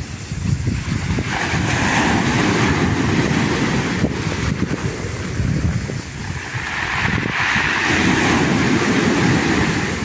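Small sea waves breaking on the shore and washing up the beach in foamy surf, with two surges of wash, one about a second in and another around seven seconds in.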